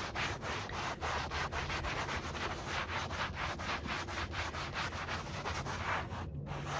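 Rapid, even rubbing or scraping strokes, about four or five a second, over a faint low steady hum.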